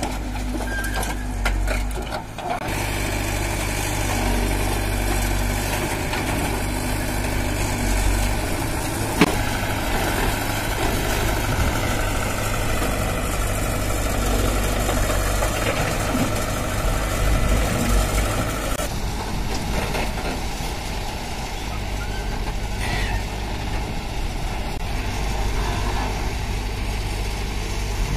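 Backhoe loader's diesel engine running steadily while digging and loading earth, with the low hum of a tractor engine nearby. A single sharp knock about nine seconds in, and the engine sound shifts abruptly twice.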